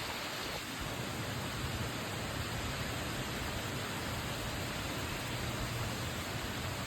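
Steady, even hiss of radio static from a receiver with no broadcast coming through, with no tone or rhythm.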